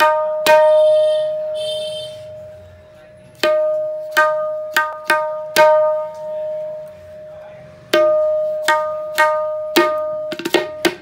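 Tabla dayan (the right-hand treble drum) struck with the fingertips near the rim. Each stroke rings out at one clear pitch with a long sustain: about ten single strokes, then a quick flurry of strokes near the end.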